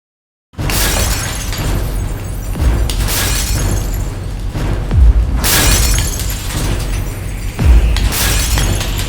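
Dramatic countdown music with shattering-glass sound effects, cutting in suddenly about half a second in after silence. Heavy hits land about every two and a half seconds.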